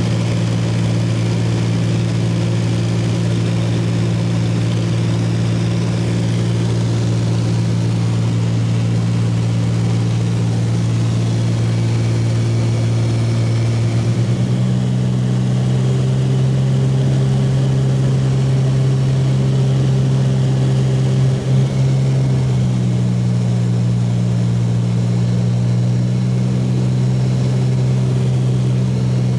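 Light aircraft's piston engine and propeller droning steadily, heard from inside the cabin. The pitch shifts slightly about halfway through and again a little later.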